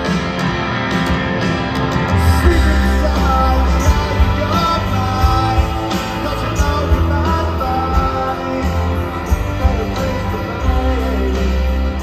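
Live rock band playing through a large PA, recorded from among the audience. Guitar carries the opening, bass and drums come in about two seconds in, and there is singing over the band.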